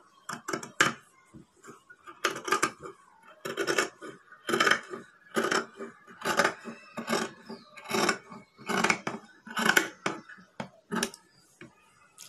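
Large tailor's shears cutting through folded fabric, a steady run of snips about one a second.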